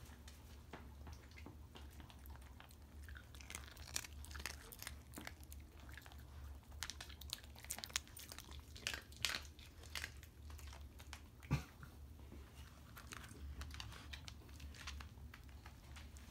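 Dog chewing food, a run of irregular wet crunches and mouth clicks, with one sharper click a little past the middle.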